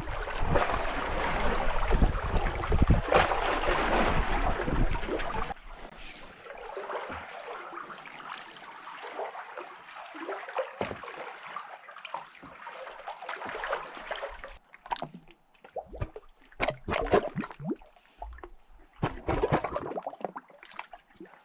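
Water rushing and sloshing around a sea kayak, with wind buffeting the microphone for the first five seconds or so. It then cuts suddenly to quieter, irregular splashes and sloshes of water.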